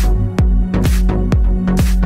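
Electronic dance music with a steady kick drum, about two beats a second, and sustained synth tones.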